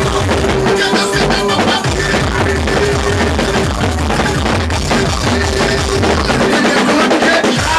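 Loud soca music with a driving drum beat.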